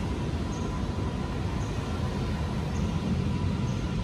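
A steady low rumbling background noise, with a faint high tick about once a second.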